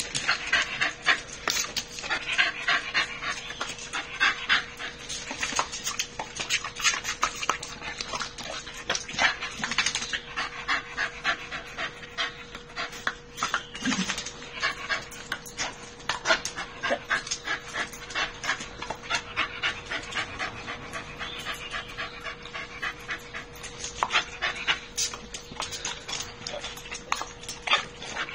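Miniature bull terrier panting hard and snapping at a spray of water from a garden hose nozzle, in a rapid, irregular run of short clicks and splashes, with a faint steady hum underneath.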